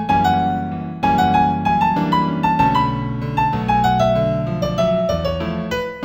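Solo piano playing a gentle New Age piece in A major, a melody of single notes over held chords that climbs and then steps back down.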